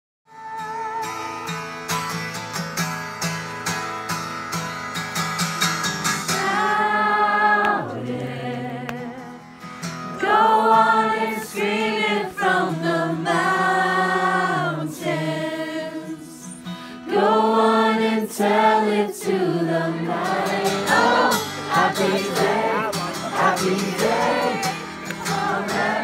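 A large group of voices singing a song together, in long held phrases with short breaks between them.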